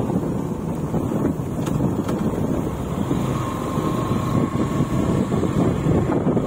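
Wind rushing over the microphone of a moving motorcycle, a steady low rumble, with a faint high tone briefly in the middle.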